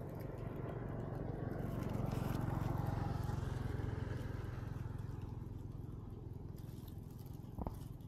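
A vehicle passing: a low rumble that swells to a peak about two to three seconds in, then slowly fades away, with a brief click near the end.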